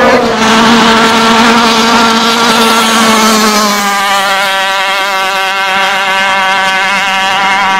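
Engine of a long-tail racing boat running flat out at high revs, a loud steady drone whose pitch drops slightly about three and a half seconds in.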